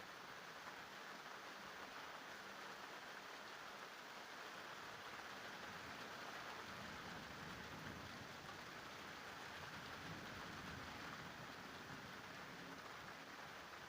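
Steady, faint rain falling in a thunderstorm, an even hiss, with a low rumble swelling and fading in the middle.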